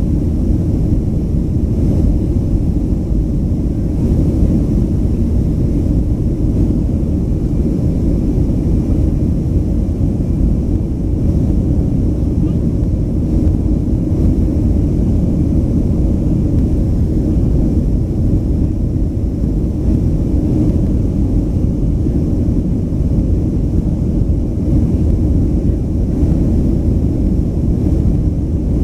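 Steady low rumble of a Boeing 737-500's CFM56-3 turbofan engines and airflow, heard inside the cabin over the wing during the climb after takeoff.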